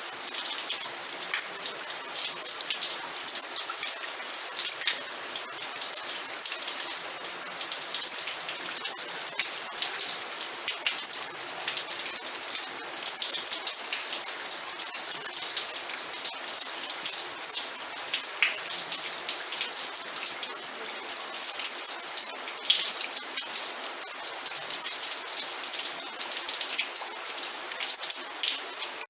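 Steady rain falling on a surface, a dense patter of individual drops over a continuous hiss.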